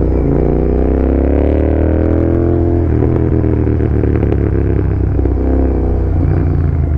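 Royal Enfield Continental GT 650's parallel-twin engine, fitted with an aftermarket AEW 103 exhaust, pulling under way. Its pitch climbs for about three seconds as it accelerates, then breaks at a gear change and runs on more steadily.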